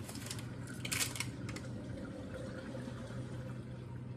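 Knife cutting through a block of lard on its paper wrapper, with a short cluster of scrapes and taps about a second in, over a steady low hum.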